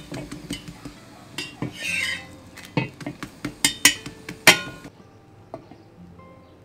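Stainless steel spatula scraping and clicking against an iron tawa as a paratha is lifted and flipped: a string of sharp clicks, loudest about four and a half seconds in. In the last couple of seconds it drops to faint background music.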